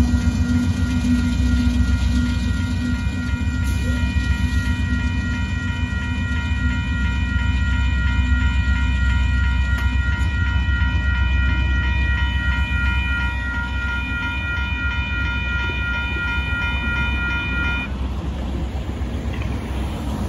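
Railroad crossing bell ringing steadily over the low rumble of a departing Union Pacific freight train's rear locomotives; the bell stops abruptly near the end as the crossing clears.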